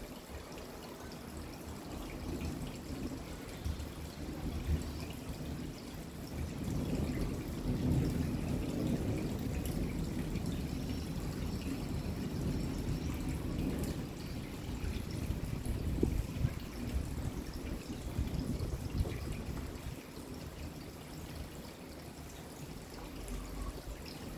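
Rain falling, with water pouring and trickling. It grows heavier about a third of the way in and eases somewhat near the end.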